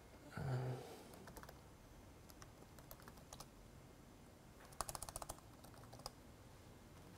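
Laptop keyboard typing: scattered keystrokes with a quick run of them about five seconds in, as login details are entered. A short murmur from the typist just after the start.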